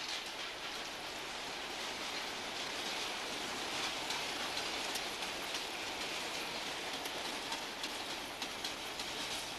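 Train running along the track: a steady rushing noise of wheels on rails, with a few faint ticks.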